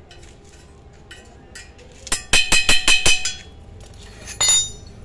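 Metal clinking on a steel square-tube frame: a quick run of about seven light, ringing taps two seconds in, then a single ringing clink near the end.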